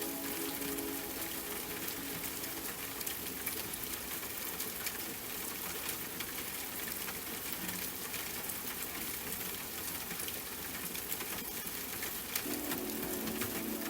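Steady rain with a dense patter of individual drops. Soft sustained music tones fade out in the first couple of seconds and come back about twelve seconds in.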